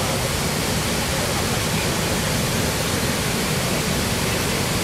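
A large waterfall in monsoon flood, a steady, even roar of falling water.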